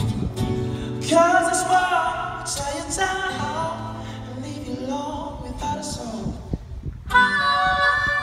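A man singing over a strummed acoustic guitar. About seven seconds in, a harmonica comes in with steady held notes.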